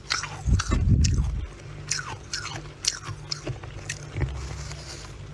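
Freezer frost being bitten and chewed close up: a run of squeaky crunches, many falling in pitch, with a heavier low crunch about half a second in.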